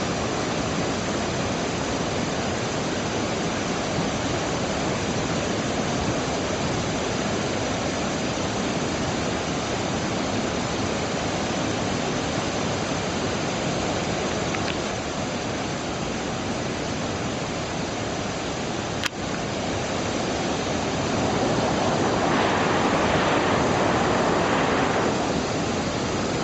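Waterfall: the steady rush of water falling and crashing into its pool. There is a single sharp click a little past the middle, and the rush swells louder for a few seconds near the end.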